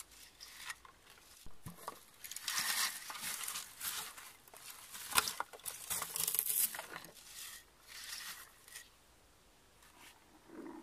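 Blueberry bushes rustling and crackling as a plastic berry picker is raked through them, in irregular bursts, with one sharp click about five seconds in.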